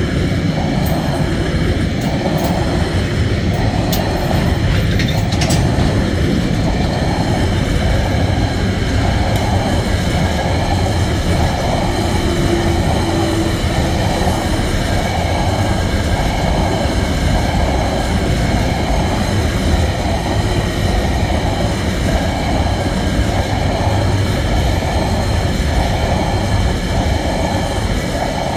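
Container flat wagons of a long freight train rolling past at speed: a steady rumble of steel wheels on rail, with a regular beat about every three-quarters of a second as the wagons' bogies go by, and a faint steady high whine above it.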